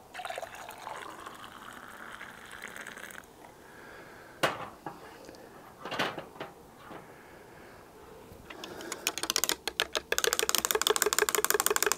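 Coffee being made in a mug: a short rushing pour, a couple of sharp knocks, then a teaspoon clinking rapidly and evenly against the mug as it is stirred, building up over the last few seconds.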